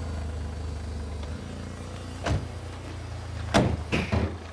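Ford Orion's XR3i-spec CVH four-cylinder engine idling steadily, a low even hum. Three sharp knocks and clunks come in the second half as the bonnet is opened.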